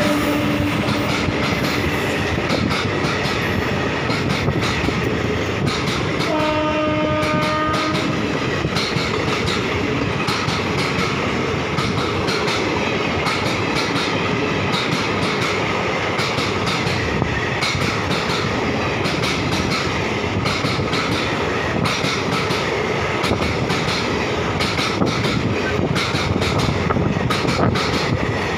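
An express train's passenger coaches running through the station at speed: a loud, steady rumble of wheels on rail with rapid clicks over the rail joints. About six seconds in, a train horn sounds once for about a second and a half.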